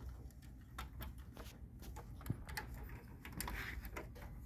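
Faint scattered clicks and light plastic knocks of hands fitting the transfer roller assembly and its wire connector into a Canon copier, with one sharper click a little past two seconds in, over a low steady hum.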